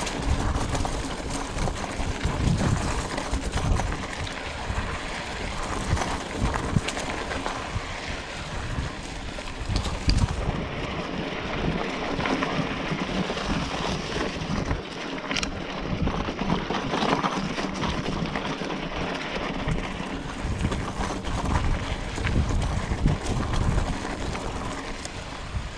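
Scott Spark 29er full-suspension mountain bike rolling over a loose, rocky dirt track: tyres crunching on stones with frequent small knocks and rattles, under wind buffeting the microphone. The wind rumble eases for a stretch in the middle.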